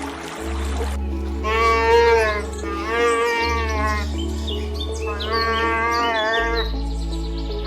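An animal calling in about four drawn-out calls, each about a second long and bending in pitch, over soft background music with a steady bass.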